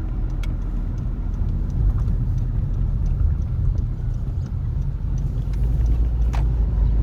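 Car driving, heard from inside: a steady low rumble of engine and road noise with a few faint rattles, growing a little louder about five and a half seconds in.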